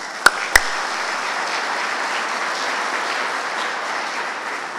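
Audience applauding, with three sharp hand claps close to the microphone at the start.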